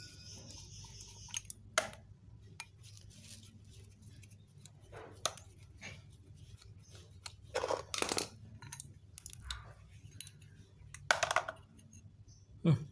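Screwdriver working the cover screws out of a Daihatsu Zebra's carburetor, with irregular metal clicks and clinks of the tool and the carburetor parts being handled. The loudest clicks come about eight and eleven seconds in.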